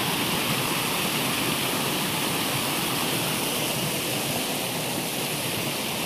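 Rocky stream rushing over rocks and small cascades, a steady rush of running water.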